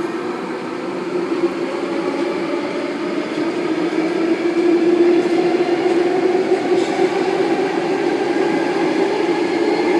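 Eight-car Tangara electric train pulling out of the platform: a steady electric hum with a whine that slowly rises in pitch as it gathers speed.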